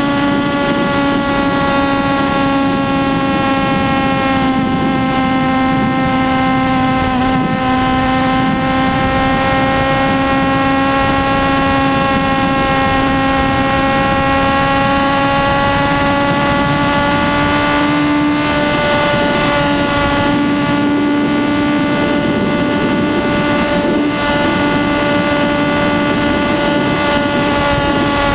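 2008 Yamaha YZF-R1's 998 cc inline-four engine running at high, nearly steady revs while cruising at about 200 km/h. Its pitch sags slightly and then creeps back up, over a steady rush of wind.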